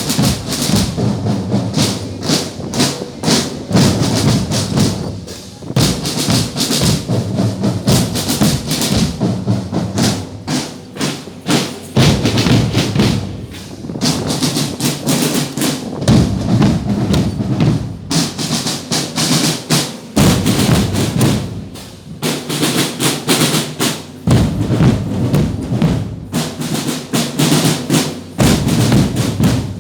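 Percussion-heavy music: drums struck in a fast, steady rhythm throughout.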